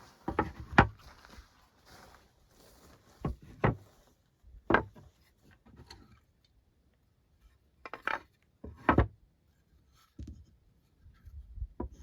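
Scattered knocks and clatters of objects being handled and set down, some in close pairs, with quiet gaps between them.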